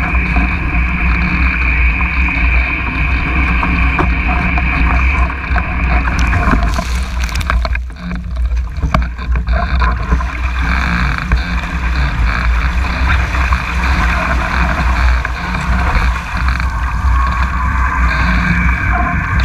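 Steady rush of water and wind past a Mach 2 Moth sailing dinghy moving fast, with a heavy low rumble. About six seconds in, a burst of spray crashes over the boat for about a second.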